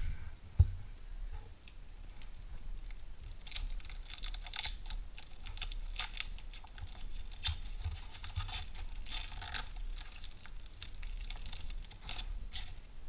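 Foil wrapper of a Panini Zenith hockey card pack crinkling and tearing as it is handled and opened, in a dense run of quick crackles and clicks. A single sharp knock comes about half a second in.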